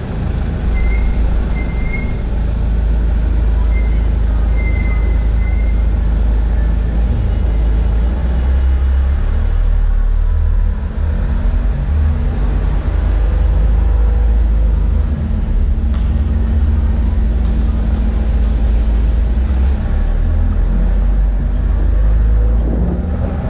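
Steady low rumble of a moving vehicle, with a few short high chirps in the first six seconds.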